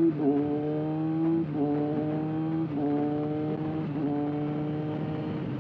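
Kawasaki ZX-6R inline-four sportbike engine through an aftermarket SC-Project exhaust, accelerating up through the gears: the engine note climbs, then drops at each upshift about every second and a bit, four times, before holding steady near the end.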